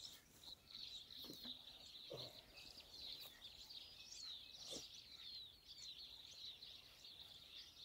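Faint, steady chorus of many small birds chirping and twittering, with a few soft knocks.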